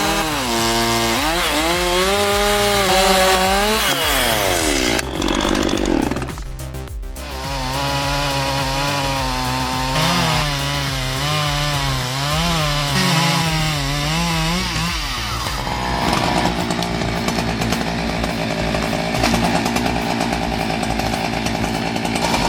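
Gasoline chainsaw running and cutting wood, its engine pitch rising and falling as it is revved and loaded in the cut, dropping away briefly about five seconds in before picking up again, and settling into a steadier, rougher cutting sound for the last several seconds.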